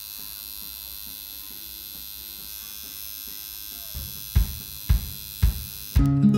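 Electric tattoo machine buzzing steadily while the needle works on skin. About four seconds in, a music track cuts in with three drum beats roughly half a second apart, and louder music follows near the end.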